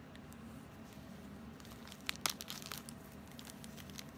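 A small clear plastic medicine bag crinkling as fingers handle it, with a quick cluster of crackles about two seconds in and a few lighter ones near the end.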